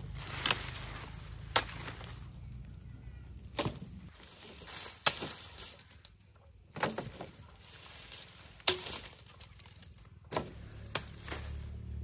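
Blade chopping sugarcane stalks: about eight sharp strikes at irregular intervals, one to two seconds apart.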